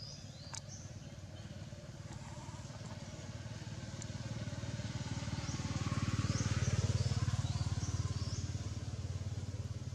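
A motor vehicle's engine passing by, its low hum growing louder to a peak about two-thirds of the way through, then easing off. A few short high chirps sound over it near the middle.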